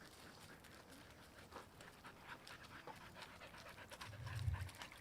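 Siberian husky panting, with a short, dull low thump about four seconds in.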